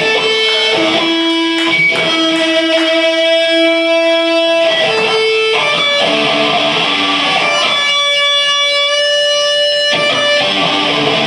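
Electric guitar through an amplifier, playing slow chords and single notes that are each held and ring for one to several seconds.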